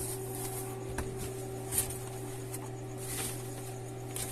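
Light handling noises, a few small clicks and soft rustles as objects are moved and set down, over a steady electrical hum.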